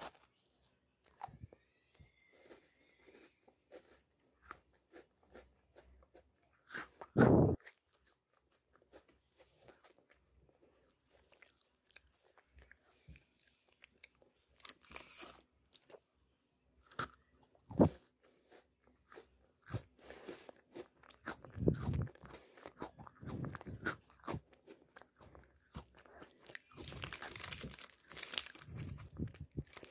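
Someone biting and chewing a crunchy chocolate-dipped Oreo cookie: scattered crunches, one loud crunch about seven seconds in, and steadier chewing in the last third. Near the end the crinkly plastic packets are handled as well.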